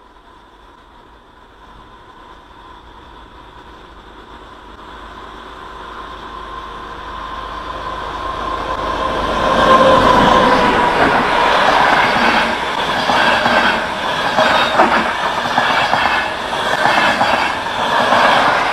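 A train approaching, growing steadily louder over about ten seconds, then running past loud with a rapid rattle of wheels over the rails.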